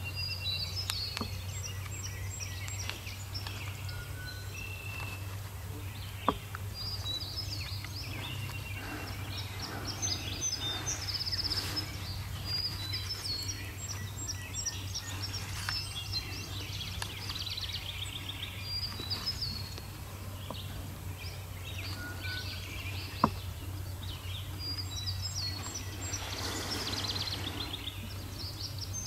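Songbirds singing in a busy chorus, with a wild turkey gobbler gobbling a few times, around eleven and twenty-seven seconds in. Two sharp ticks are heard, about six and twenty-three seconds in.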